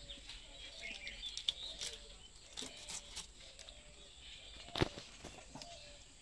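Birds chirping, with scattered soft knocks of a boti blade chopping fish on a wooden board; the sharpest, loudest knock comes near the end.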